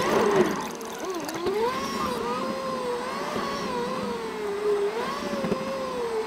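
Ford Fiesta ST's turbocharged four-cylinder engine heard from inside the car in sped-up footage, so its pitch is raised. The pitch glides up and down with the revs as the car climbs through a parking garage.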